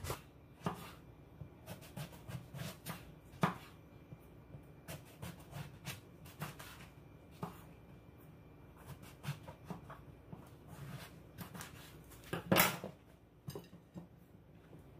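Kitchen knife slicing through an eggplant and tapping on a wooden cutting board in irregular strokes, with a louder knock a few seconds in and another near the end.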